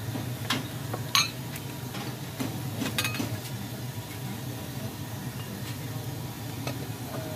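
Ceramic bowls and utensils clinking on a steel counter: a handful of sharp clinks, the loudest about a second in, over a steady low background rumble.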